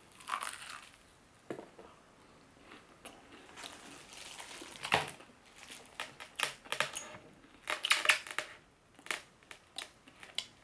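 Crunching and chewing of crispy fried chicken, mixed with the crinkling of clear plastic food gloves as pieces are handled in a glass bowl. Sharp crackles come in clusters, the densest about eight seconds in.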